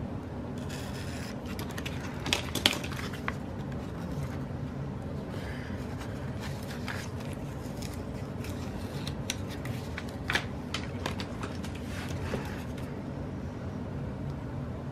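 Scissors snipping a sticker sheet, with paper rustling and scattered small clicks, the sharpest cluster about two and a half seconds in, over a steady low hum.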